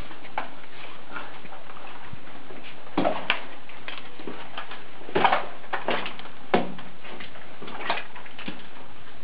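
Irregular footsteps on the wet, stony floor of a mine tunnel, a few scattered scuffs and splashes over a steady hiss.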